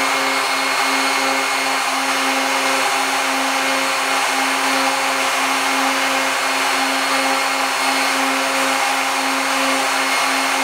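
Narrow belt sander running steadily while a hardened-steel valve seat insert ring is held against the moving belt. The hum and grinding noise stay level throughout, with a slight flutter in the hum.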